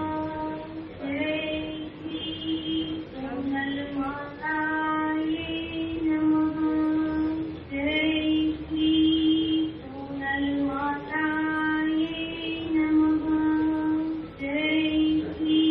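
A woman's voice singing an aarti hymn, holding long notes in phrase after phrase.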